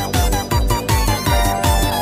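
Background music with a quick, steady beat and a bouncy, game-like melody.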